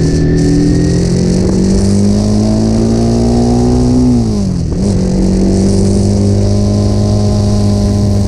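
Motorcycle engine through an aftermarket Scorpion muffler, its exhaust note rising steadily for a few seconds, dropping sharply about four seconds in, then holding steady.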